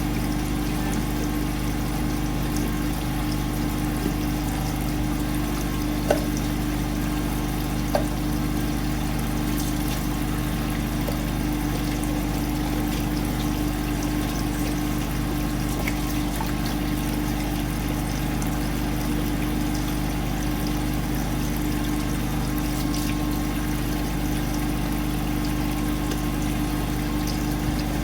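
Steady low mechanical hum of a running motor or appliance, with two light clicks of plastic ice cubes being set down, about six and eight seconds in.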